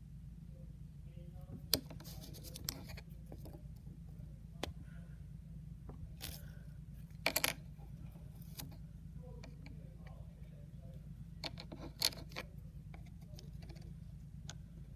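Scattered light clicks and taps, with a quick run of three about seven seconds in, from a metal coin and a lump of clay being handled on a wooden board, over a steady low hum.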